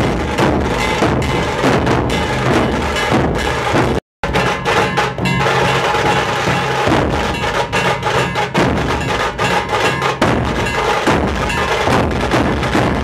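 Nashik dhol drums played by a group in a dense, fast, loud rhythm. The sound cuts out completely for a moment about four seconds in, then the drumming carries on.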